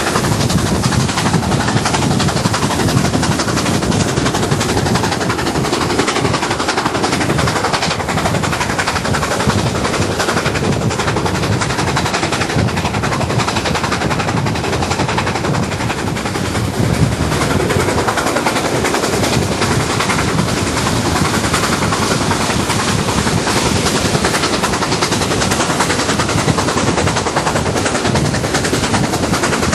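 Exhaust of a BR Standard Class 7 'Britannia' Pacific two-cylinder steam locomotive beating hard and fast as it climbs a steep bank with a nine-coach train, heard from an open coach window with the rush of wind and wheels.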